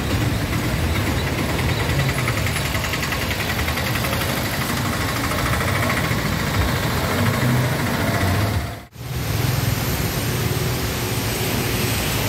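Engine of a three-wheeled goods carrier running as it drives through floodwater, over a steady hiss of water. About nine seconds in the sound dips out briefly, then comes back as a brighter, steady hiss of motorbikes and cars spraying through the flooded road.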